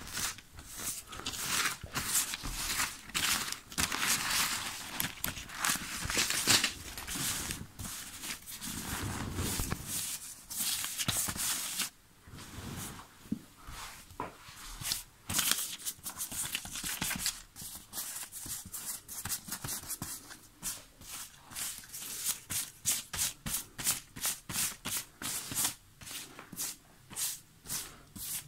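Paper banknotes rustling and crinkling as hands shuffle and spread a pile of rupee notes. In the later part the handling turns into a steady run of swishes, about two a second.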